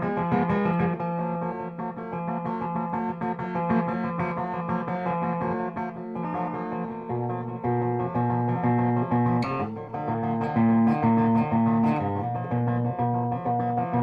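Davison-built 'Spanky' electric guitar with a P90 pickup and a silicon-diode tone circuit, played through a Peavey Bandit amplifier's lead channel with no pedals. Held notes and chords are picked in a loose noodle, with lower notes coming in about seven seconds in and a sharp strum just after nine seconds.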